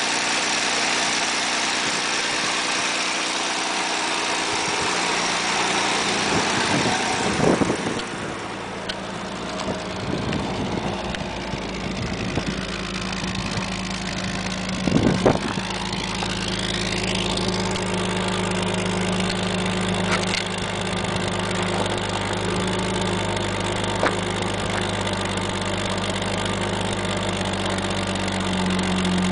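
1983 Toyota Celica Supra's twin-cam inline-six idling steadily while warming up from a cold start, heard first from the engine bay and then at the tailpipe, where the exhaust note is deeper and fuller. Two brief knocks, about a quarter of the way in and about halfway.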